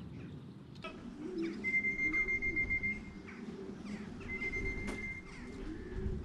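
Racing pigeons cooing, low and wavering, with a steady high tone sounding twice, about a second each.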